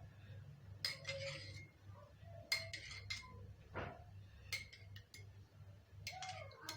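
A metal spoon clinking against a dish about six times at irregular intervals, each clink short and ringing, as milk is spooned over a cake to soak it. A faint steady low hum runs underneath.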